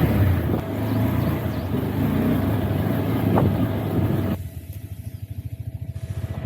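Off-road motorcycle engine running steadily, then dropping about four seconds in to a lower, evenly pulsing idle.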